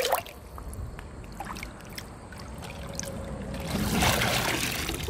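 Mesh funnel fish trap being hauled up through a shallow stream: a splash at the start, light sloshing, then water rushing and pouring out through the mesh as the trap breaks the surface near the end.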